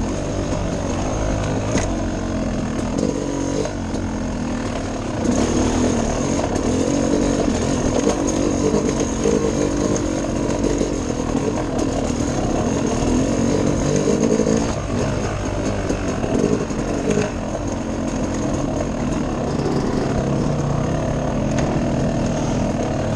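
Dirt bike engine running under varying throttle, louder for about ten seconds from around five seconds in, with a steady high whine over it.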